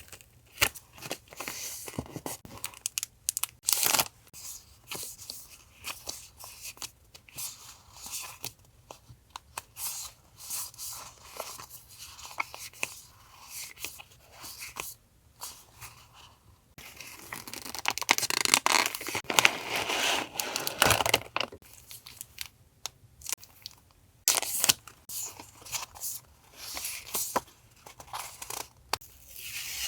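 Paper and packaging being handled and torn by hand: scattered rustles and light taps, with a longer stretch of continuous tearing and crinkling past the middle.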